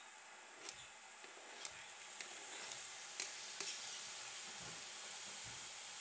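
Tofu frying in a pan, sizzling steadily, as diced tomatoes are scraped in off a cutting board. The sizzle grows louder over the first few seconds, with a few light clicks.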